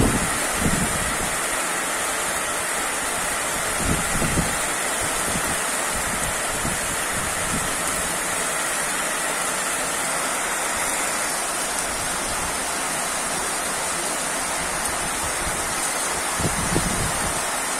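Heavy downpour of rain: a steady, dense hiss of rainfall. A few brief low bumps break through, about four seconds in and again near the end.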